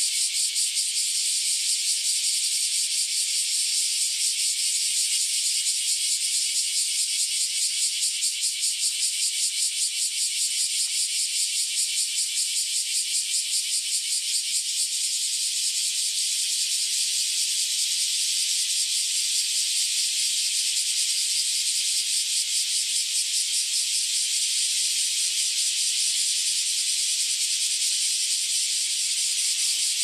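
Chorus of cicadas singing: a steady, high, dense buzz made of very fast pulses, without a break.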